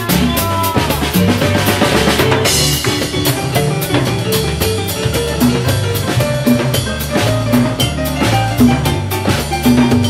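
Live beguine band playing: a driving drum-kit and hand-drum rhythm under electric bass, keyboard and violins.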